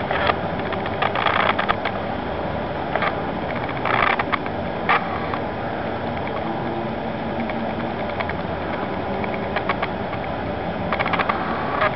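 Irregular clusters of short mechanical clicks and rattles over a steady background hum.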